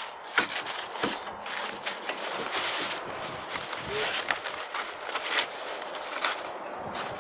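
Roofing underfelt rustling and crinkling as a gloved hand unrolls it and presses it into place, with scattered sharp clicks and light knocks.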